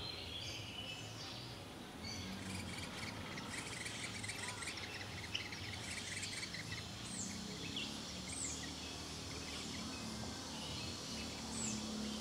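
Small birds calling: a rapid run of chirps a couple of seconds in, then three short, high, falling calls, over a steady hiss of insects.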